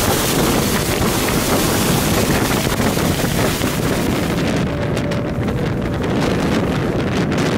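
Strong high-mountain wind driving snow past the microphone: a loud rushing and buffeting that turns gustier and choppier about halfway through.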